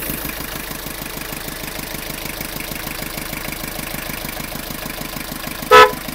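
Tata Estate station wagon's engine idling steadily, just after being started. A single short, loud horn beep sounds near the end.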